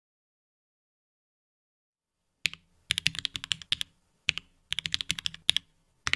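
Mechanical keyboard being typed on: fast runs of key clicks with short pauses between them, starting after a silent first couple of seconds. The keyboard is a GamaKay K61 Pro with Gateron Yellow linear switches.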